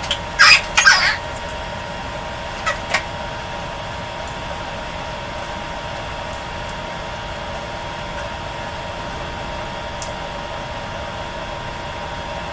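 A person's short, loud vocal sounds in the first second, then a steady background hum with a couple of faint clicks.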